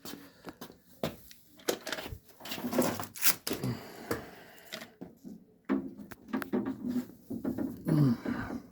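Camera handling noise: an irregular string of clicks, taps and knocks as the camera is worked into the car door's inner opening.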